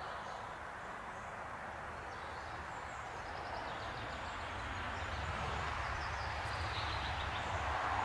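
Forest ambience: faint birdsong over a steady background hiss that grows louder toward the end, with a low rumble building from about halfway through.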